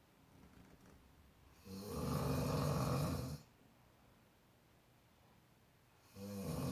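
A person snoring: one long rasping snore lasting under two seconds, starting about two seconds in, and the next snore starting near the end, with quiet in between.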